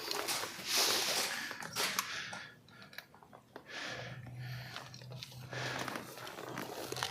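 Footsteps and rustling of clothing and gear on the ground, scratchy and uneven, easing off partway through. A faint low hum with short breaks comes in from about four seconds.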